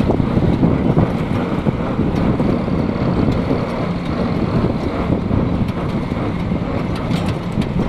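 A John Deere tractor's diesel engine running steadily at road speed a few metres away, heard as an even rumble mixed with wind buffeting on the microphone of a moving vehicle.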